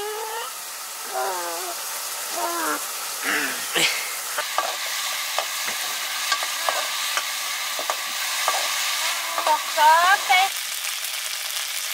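Food sizzling and frying in a wok over a wood fire, with a metal ladle stirring and knocking against the pan in short, irregular ticks. A few short, high voice sounds come in the first few seconds and again near the end.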